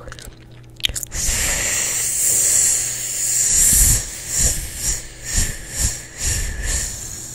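A drawn-out 'sss' hiss made with the mouth close to the microphone, held for about three seconds, then broken into a run of short hissed pulses about twice a second.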